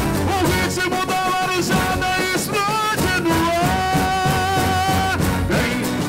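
Boi-bumbá toada: a singer's long held lines over the steady beat of the marujada drum band.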